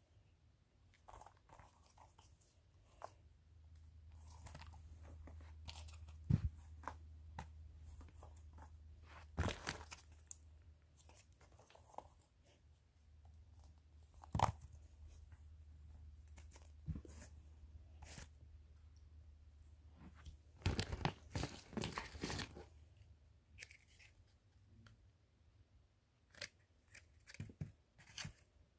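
Small packaged fireworks and their plastic wrapping being handled: scattered crinkling, rustling and light clicks, busiest in a stretch of about two seconds near 21 seconds in.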